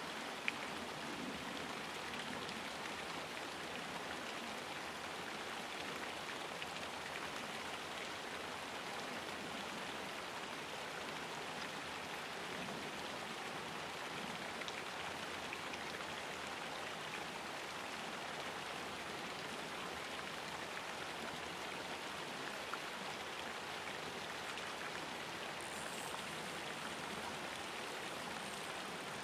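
Steady, even hiss of running water, like a pond inflow or aerator. A faint, thin high tone comes in near the end.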